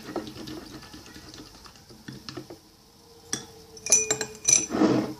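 Spoon clicking and clinking against a mixing bowl as slime is stirred, with sharper ringing clinks from about three seconds in and a short scrape near the end.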